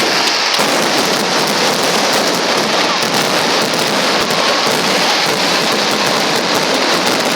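Fireworks crackling in a dense, steady hiss of many small pops, with a faint short whistle now and then.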